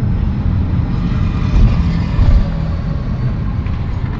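Steady road and engine rumble of a car driving along, heard from inside the car, with two brief heavier low bumps in the middle.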